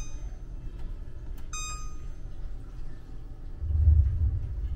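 LG range's control panel giving one short beep as a key press starts the 20-minute timer, over a steady low rumble that swells near the end.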